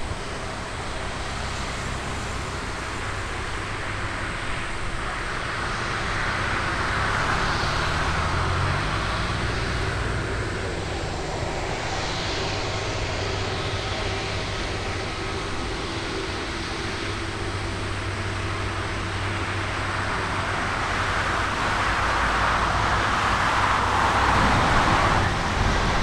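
Airbus A330's twin Rolls-Royce Trent 700 turbofans running at taxi power, a steady jet whine and rumble. The sound swells briefly partway through and grows a little louder in the last few seconds.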